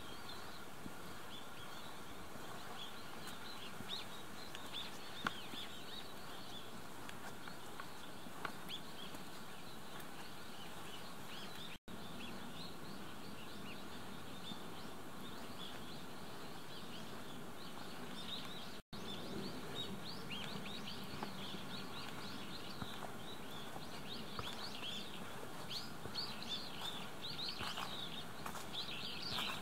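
Many small birds chirping and twittering over a steady outdoor background hiss, the calls short and high, thickest near the end.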